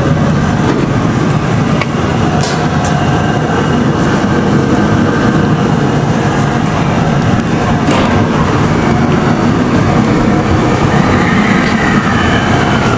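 JR West 521-series electric train at the platform, running with a loud steady rumble. Near the end a rising electric whine starts, as its motors begin to move the train.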